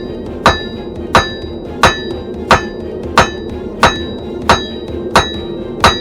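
Blacksmith's hammer striking on an anvil in an even rhythm, about one and a half blows a second, nine in all, each with a short metallic ring. A steady background sound runs underneath.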